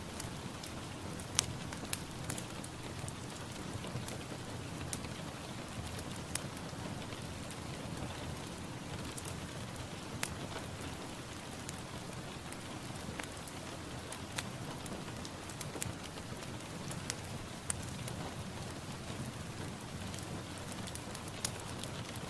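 Steady rain falling, with a constant hiss and many individual drops ticking sharply on a hard surface.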